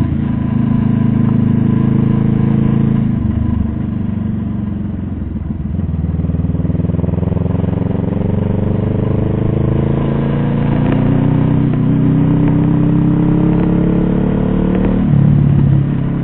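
A vehicle engine running under way: steady at first, dipping about three seconds in, then rising steadily in pitch for several seconds as it accelerates, and falling sharply near the end.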